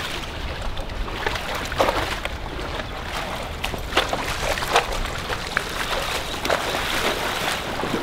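Legs wading through shallow flowing water, steady sloshing with irregular sharp splashes from each step.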